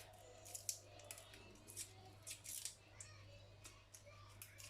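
Faint, irregular crackling clicks of papery garlic skins being peeled off cloves, over a steady low hum.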